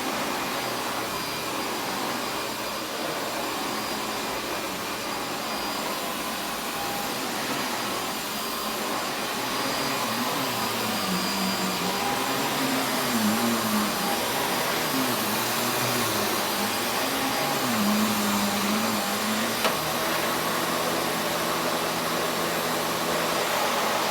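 Panasonic MC6955 upright vacuum cleaner with an 11-amp motor, running steadily. A low wavering tone comes and goes in the middle, and there is a single sharp click about twenty seconds in.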